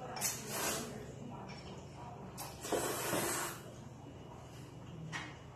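A person slurping ramen noodles from a bowl: a short slurp just after the start, then a longer, louder slurp about two and a half seconds in.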